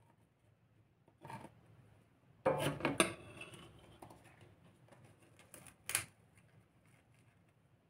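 A metal spoon clattering as it is set down in a stainless steel mixing bowl, loudest about two and a half to three seconds in. Lighter knocks of pastry being handled on a glass plate come just after a second and again near six seconds in.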